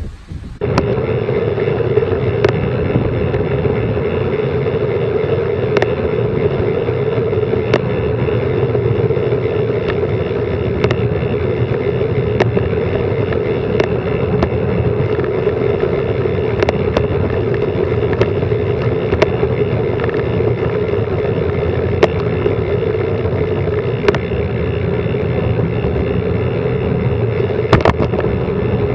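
Loud, steady rush of wind and road noise on an action camera's microphone during a fast bicycle descent, starting abruptly about half a second in. Sharp ticks and knocks from the bike rattling over the road surface recur every second or two.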